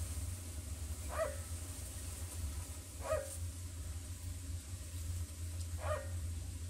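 Three short, falling cries from a frog held in a water snake's jaws, about a second, three seconds and six seconds in: the frog's distress call as it is being seized. A steady low hum lies underneath.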